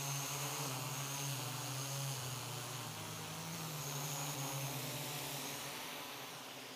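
Quadcopter propellers buzzing steadily as the quad hovers and is pushed into place by hand. The hum grows somewhat fainter near the end.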